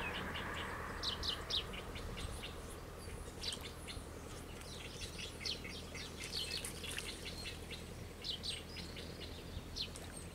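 Small birds chirping: many short, quick calls that slide down in pitch, coming in clusters, over a faint steady low hum.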